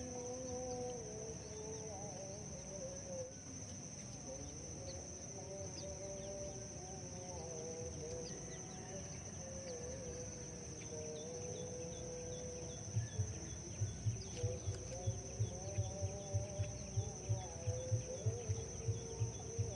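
Outdoor rural ambience with a steady high insect drone and faint wavering animal calls. Short high chirps come and go. From about two-thirds of the way in, a regular low thudding sets in, about two beats a second.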